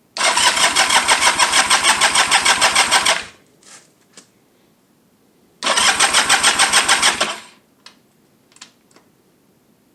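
Motorcycle engine cranked over by its starter motor in two bursts, a longer one of about three seconds and a shorter one about five seconds in, with fast even compression pulses, without firing: no spark is coming from the newly fitted Dynatek ignition. A few small clicks fall between the bursts.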